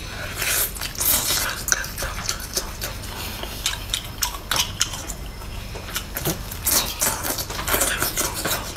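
Wet eating sounds of octopus in thick chili sauce: sticky smacking, slurping and chewing, with quick wet clicks several times a second and squelching as gloved hands pull the tentacles apart.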